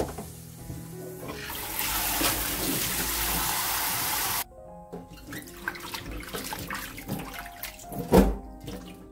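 Cold tap water pours hard into a stainless steel bowl of blanched garlic scapes, starting about a second and a half in and cutting off suddenly a few seconds later. Then water sloshes and splashes in the bowl, with a loud knock near the end, over steady background music.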